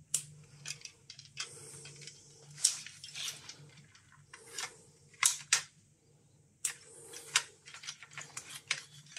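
Irregular sharp clicks and snaps, a dozen or so, of hand work with small tools on the insides of a Pripyat RKS-20.03 radiometer, over a faint steady hum.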